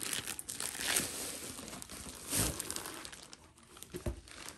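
Clear plastic packaging crinkling and rustling as a rolled diamond-painting canvas is handled in and out of its plastic dust-cover bag. There are louder bursts of crinkling about one and two and a half seconds in.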